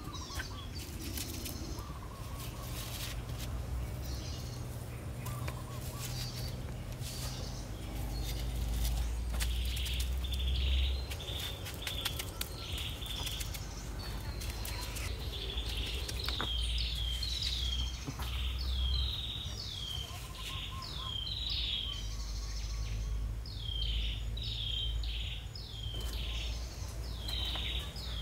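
Small songbirds chirping in quick downward-sweeping notes, repeated over and over and more often in the second half, over a steady low rumble. A few sharp knocks come near the start.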